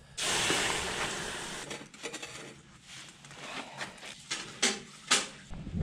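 Campfire ashes and coals tipped out, a sudden rushing hiss that fades over about two seconds, followed by scattered light clinks and knocks of gear.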